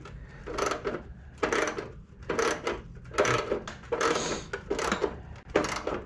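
Socket ratchet clicking in short strokes about once a second as a stubborn engine-shroud bolt is worked loose a little at a time, turned back and forth as it binds.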